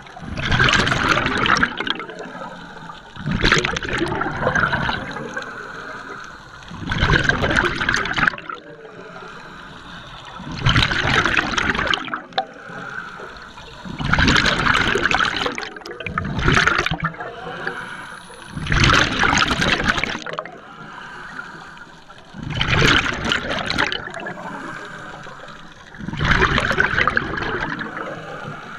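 Scuba diver breathing through a regulator underwater: a loud rush of exhaled bubbles every three to four seconds, about nine times, with a quieter hiss between breaths.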